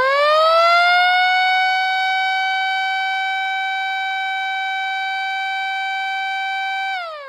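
Mechanical siren winding up, its pitch rising and levelling off after about two seconds into a steady tone, then beginning to wind down and fall in pitch near the end.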